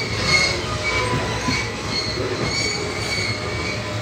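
Coal hopper wagons of a long freight train rolling past, with a steady low rumble and an intermittent high-pitched squeal from the wheels.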